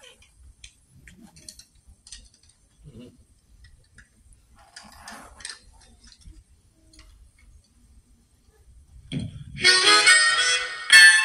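Harmonica played into a stage microphone. After a long, nearly quiet pause with only faint small noises, loud chords start about nine and a half seconds in.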